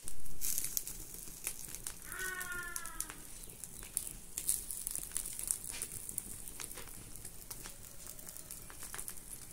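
Wood fire crackling and popping in an open hearth, with a brief rush of noise at the very start. About two seconds in, a farm animal calls once for about a second, falling slightly in pitch.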